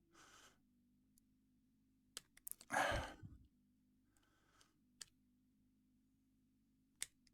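A few faint, sharp metal clicks of tweezers working at the C-clip on a lock cylinder, with one breathy sigh about three seconds in.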